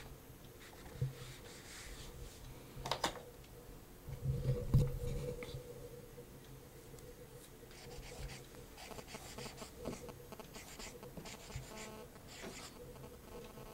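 Dry-erase marker scratching and squeaking faintly on a whiteboard in short strokes as words are written. A sharp click comes about three seconds in, and a louder low thump a second later.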